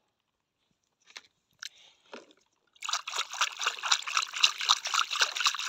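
A hand splashing and swishing a small plastic toy animal about in a plastic tub of water, rapid splashes starting about three seconds in, after a few faint small taps.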